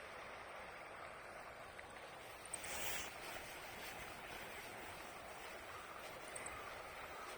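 Steady rush of running water in a stream, with a short louder splash of water about two and a half seconds in.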